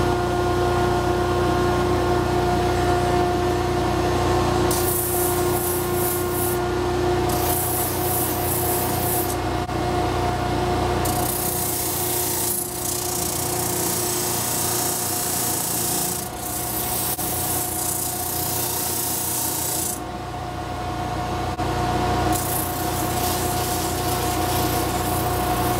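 An electric motor with a sanding drum on its shaft runs with a steady hum while a small piece of intarsia wood is pressed against the spinning drum in about five passes, each a rasping hiss of sanding as the piece is shaped.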